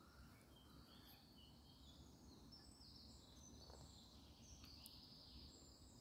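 Near silence, with faint birds chirping in short calls over a low background hum.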